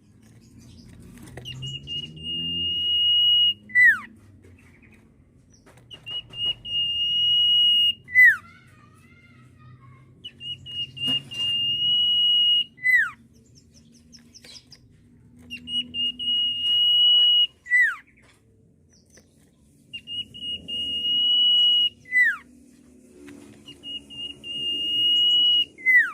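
Common iora (cipoh, sirtu variant) whistling its song six times: each phrase is a long, steady high whistle held for about two seconds, then a sharp falling note.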